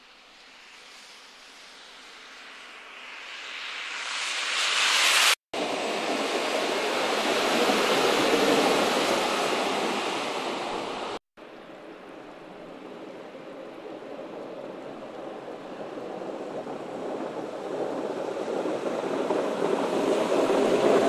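Road noise of vehicles driving through slush on a snow-covered road: a steady hiss of tyres and engines that swells as a car and then snowplow trucks approach and pass. The sound breaks off sharply twice, about five and eleven seconds in.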